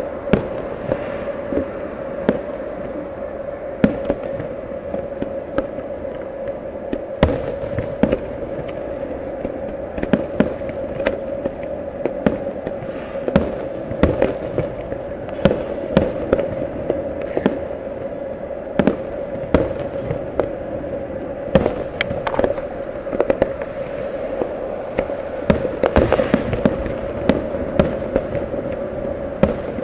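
Fireworks display: aerial shells bursting in a long, irregular series of sharp bangs, several a second at times, over a steady hum.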